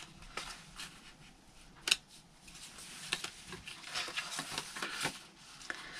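Paper rustling and faint ticks as hands handle a small paper tag, slip it onto a paper clip and smooth the journal page, with one sharper tick about two seconds in.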